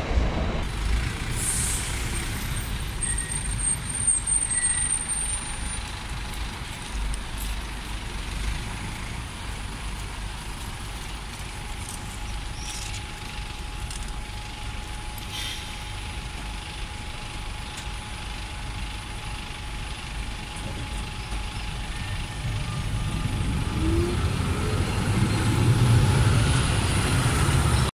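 Slow traffic of small billboard trucks and cars driving past, with engines running and a steady low rumble. The sound grows louder near the end as a vehicle passes close.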